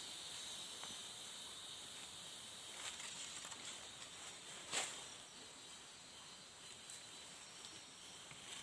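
Insects shrilling steadily in two high-pitched bands, the highest one pulsing evenly, with a single sharp click about five seconds in.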